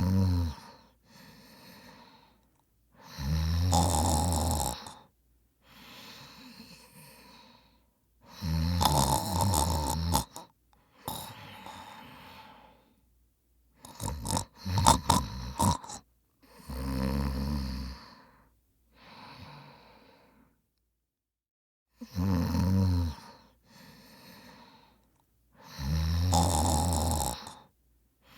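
A person snoring, with loud snores roughly every four to five seconds, each followed by a quieter breath out. A few sharp catches come in the middle, and there is a short silent pause before the last two snores.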